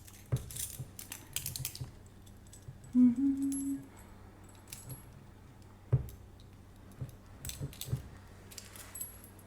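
Metal handcuffs and their keys being handled: scattered sharp clicks and small clusters of metallic ticks and jingles, with a single sharper click about six seconds in.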